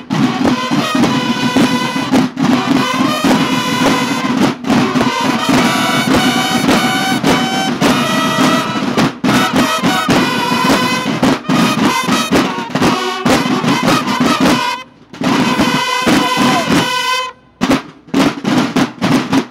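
A banda de guerra drum and bugle corps playing: several snare drums beating rolls and strokes while bugles sound a march call over them. It stops briefly twice, about fifteen and seventeen seconds in.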